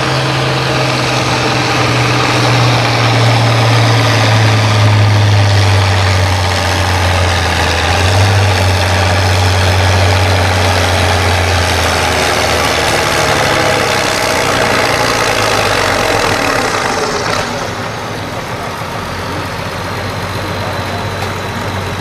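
International Harvester farm tractor's engine running hard under full load as it drags a weight-transfer pulling sled, its pitch sinking slowly as the sled's weight builds and the engine lugs down. About 17 seconds in it throttles back and runs more quietly as the pull ends.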